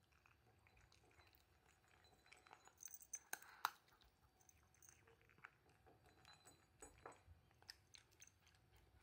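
Orange tabby cat eating dry kibble from a ceramic bowl: faint, irregular crunching, with a few sharper clicks about three seconds in.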